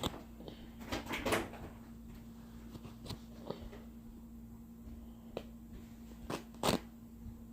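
Handling noise: a few scattered knocks and rustles, the loudest about a second in and near the end, over a steady low hum.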